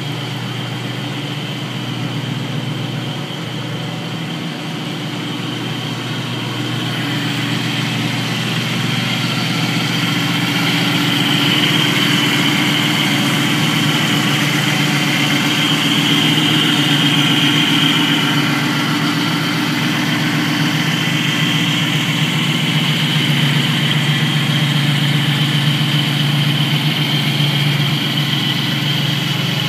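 Ford Coyote 5.0 DOHC V8 swapped into a 1968 Mustang Fastback, idling steadily on its first start-up run. It gets a little louder about seven seconds in, then holds even.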